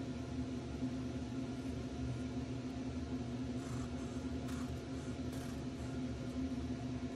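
Steady low machine hum with a held tone, with a few faint brief scratches about four to five and a half seconds in.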